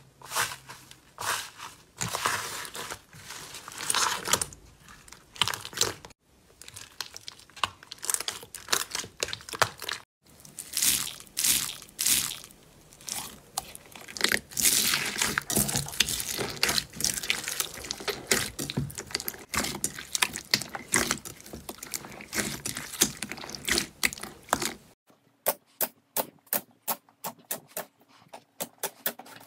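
Slime being squeezed, poked and pressed by hand, giving dense irregular crackling and crunching, with the texture changing sharply a few times. Near the end there is a quick run of sharp, evenly spaced clicks.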